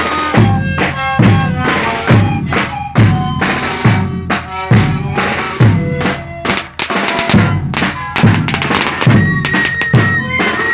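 Sikuris band playing: many Andean siku panpipes sounding overlapping short notes over bombo bass drums that beat a steady pulse about once a second. Near the end, one high note is held for about a second and a half.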